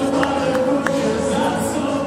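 Music with several voices singing together, choir-like, over sustained held notes.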